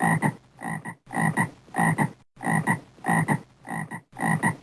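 Frog croaking in a quick steady series of about two calls a second, each call a doubled croak, alternating louder and softer.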